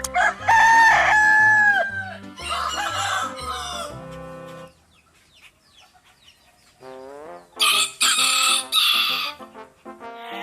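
Rooster crowing, a long held call that drops at its end, followed by further calls, the last loud one about eight seconds in, over background music.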